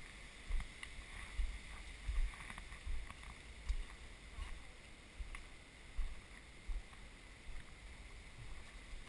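Walking footsteps on a dirt and rock trail, picked up by a GoPro as dull low thumps about every three-quarters of a second, over a faint steady hiss.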